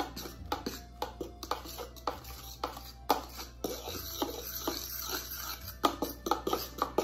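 Background music, with a fork clicking and scraping against the bottom of a pan as cake batter is stirred by hand, several quick taps a second.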